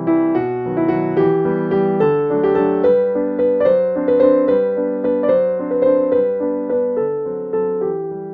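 Background piano music: a gentle melody of struck notes, about two a second.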